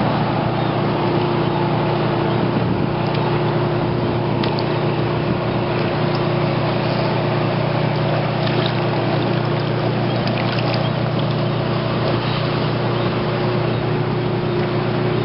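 A boat engine running with a steady, unchanging drone and an even hum.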